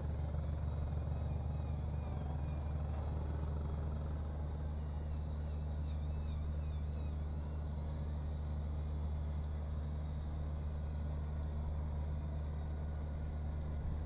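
A steady shrill insect chorus over a low steady hum.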